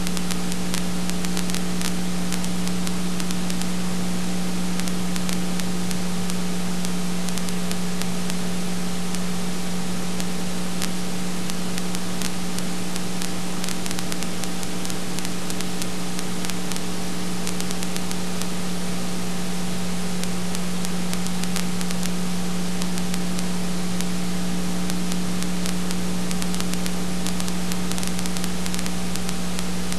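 Steady hiss with a strong electrical hum and scattered crackling clicks, the noise track of a transfer of old silent home-movie film.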